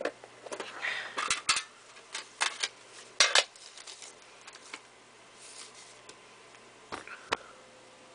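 Packaging and a metal CD tin being handled and pulled out of a cardboard box of packing peanuts: a quick run of sharp clicks and clatters in the first three and a half seconds, a soft rustle, then two more clicks near the end.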